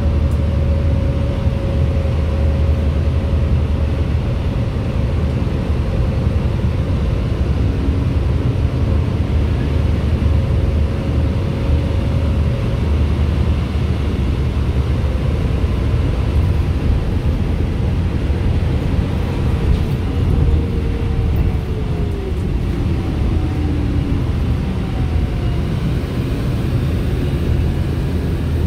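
Cabin sound of a New Flyer D35LFR diesel city bus under way: a steady low engine and road rumble with a faint whine, which falls in pitch about twenty seconds in.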